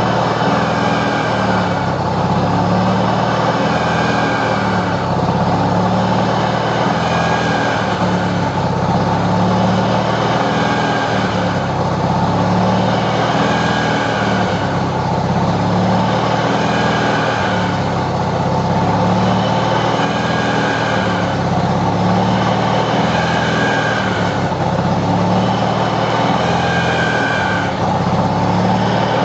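1993 Mazda RX-7's twin-turbo rotary engine running steadily, with a turbo whine that swells and fades about every two seconds.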